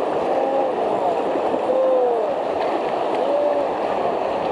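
River rapids rushing steadily around an inflatable raft, with about four short shouted calls from voices on board that each rise and fall in pitch.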